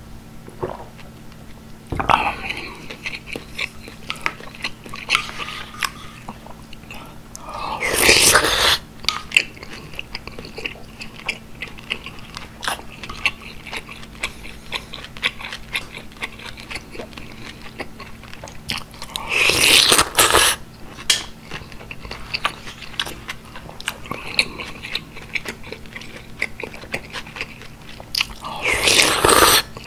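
Close-miked chewing of gukbap: beef, rice and broth eaten by spoon, with moist mouth clicks. Three loud slurps of about a second each, about 8 s in, about 20 s in and near the end.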